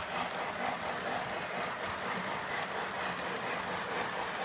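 Model train, a steam-type locomotive pulling cars, running along its track with a steady noise of wheels and motor.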